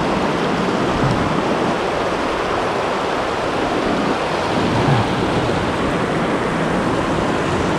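Spillway rapids: fast water rushing and churning over rocks, a steady, loud rushing noise.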